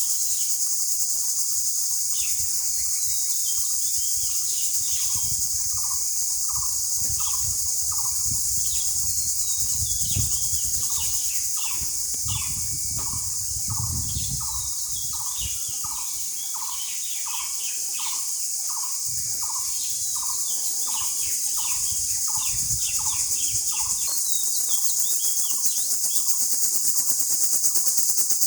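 A steady, high-pitched chorus of insects such as crickets or cicadas, with a bird calling a short repeated note about twice a second and other birds chirping higher above it.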